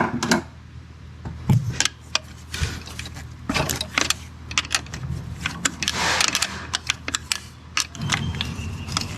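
Irregular metallic clinks, clicks and knocks of hand tools and fasteners as a bracket is unbolted, with a short scrape about six seconds in, over a steady low hum.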